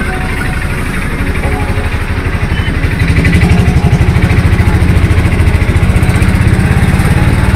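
A vehicle engine running with a rapid low throb, growing louder about three seconds in.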